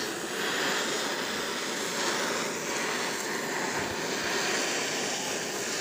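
Butane gas torch on a portable canister burning steadily: a continuous rushing hiss as it heats an aluminium engine cover.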